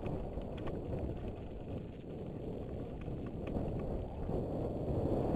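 Wind rushing over a helmet-mounted action camera's microphone as a downhill mountain bike rides fast down a dirt trail, with a low rumble and a few light clicks from the bike.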